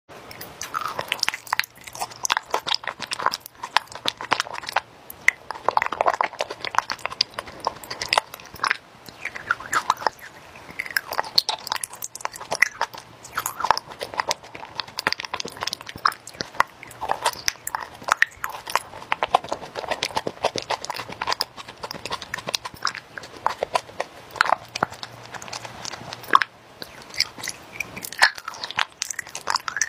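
Close-miked mouth sounds of biting into and chewing raw honeycomb: the wax comb gives a dense, irregular run of short clicks and crunches.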